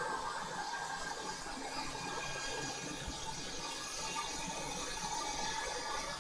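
Steady airy hiss of a blower running on the soldering bench, even throughout, with a faint steady tone underneath.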